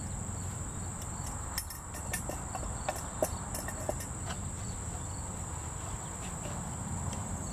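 Steady high-pitched chirring of insects, with a few short clicks and scrapes of a wooden spatula stirring chopped onion into a cast-iron Dutch oven between about one and a half and four seconds in.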